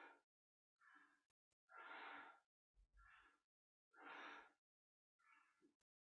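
A woman breathing deeply in rhythm with a seated spinal flex, inhaling as the spine rocks forward and exhaling as it rocks back. A stronger breath alternates with a weaker one, about one full breath every two seconds, faint throughout.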